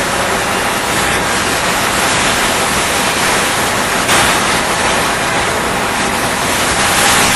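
Loud, steady rushing of falling water, an unbroken roar like a waterfall.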